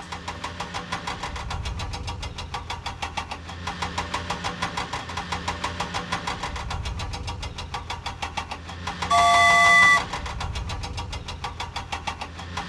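An engine running with a fast, even knocking chug, the kind of engine sound laid over a toy excavator at work. About nine seconds in, a loud horn blast lasts about a second.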